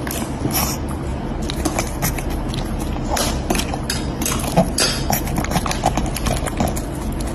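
Small dog eating from a ceramic bowl: irregular crunching and clicking of chewing, several clicks a second over a steady low background hum.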